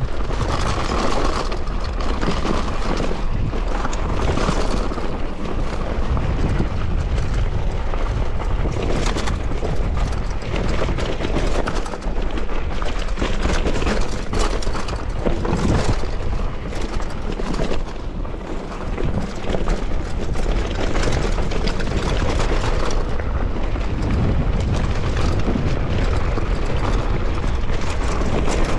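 Steady wind buffeting an action camera's microphone while riding a bike, with deep rumble and a few knocks from bumps along the way.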